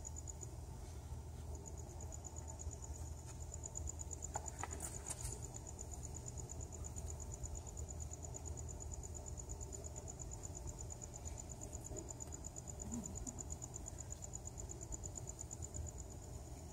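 A cricket chirping in a rapid, even, high-pitched pulsing trill that breaks off briefly about a second in and then runs on steadily, over a low background rumble.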